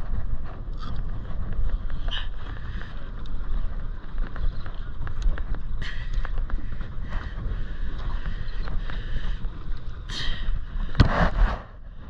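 Wind rumbling on the microphone on a boat, with fabric rustling against the body-worn camera and scattered small clicks; short rushes of rubbing noise come about six seconds in and again near the end.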